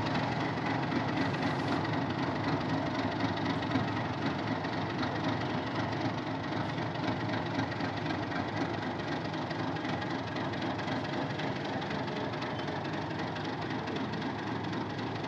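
Diesel locomotive's engine running steadily as it moves a coal train along the track, growing slightly fainter toward the end.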